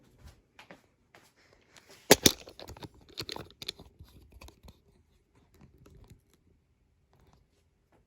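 A pair of sharp clicks about two seconds in, then a couple of seconds of crinkly rustling and small scattered clicks, fading to a faint background.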